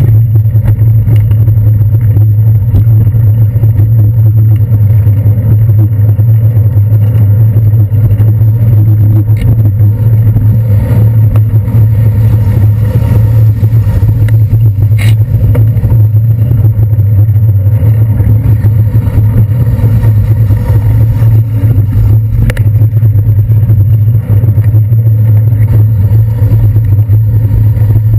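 Steady, loud low rumble of a bicycle riding over wet city streets, picked up by a GoPro Hero 2 mounted on the handlebars, mixed with the noise of traffic passing close by. There is a single short click about halfway through.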